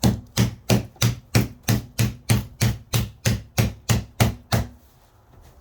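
A steady run of about fifteen sharp taps, roughly three a second, knocking a rail of a 3-rail Hang 'N Air rack down into its groove to lock the mesh in tight. The tapping stops about a second before the end.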